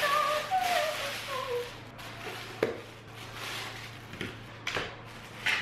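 Plastic packaging crinkling as parts are unwrapped, under a melody that stops a second or two in. After that come a few sharp clicks and knocks as the plastic parts are handled.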